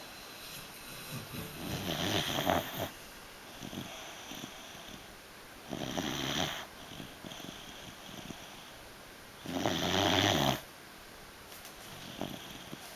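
A beagle snoring in its sleep: three loud snores, each about a second long and about four seconds apart, with fainter breaths between.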